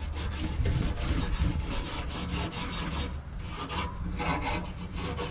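A long-handled wire grill brush scrubbing the cooking grate of an Akorn kamado grill in quick back-and-forth strokes, a steady scratchy rasping.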